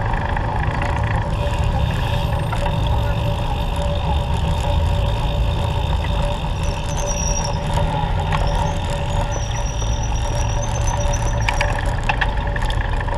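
Road traffic: a steady engine rumble and hum, with a thin high squeal from about seven to eleven seconds in.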